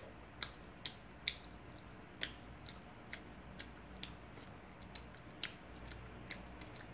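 Close-up chewing of chewy rice cakes (tteok) in sauce, with sharp wet mouth clicks at irregular intervals. The clicks are loudest in the first couple of seconds, then come fainter and sparser.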